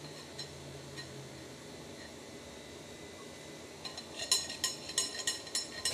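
Metal spoon clinking against a glass mixing bowl while working chicken pieces in batter: a quick, irregular run of sharp, ringing clinks that starts about two-thirds of the way in.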